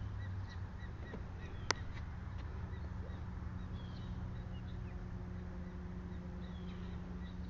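Steady low hum with faint bird chirps over it, and one sharp click just under two seconds in.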